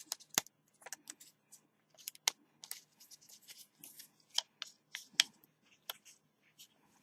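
Irregular small clicks and crackles of thin adhesive gasket tape being handled and pressed around a phone's frame, a dozen or so sharp ticks with a few louder ones.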